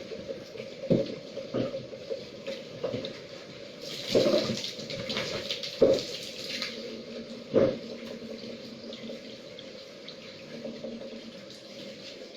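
Water running and splashing from an outdoor water filter tank being emptied, with about half a dozen sharp knocks and clatters in the first eight seconds, then steadier running water.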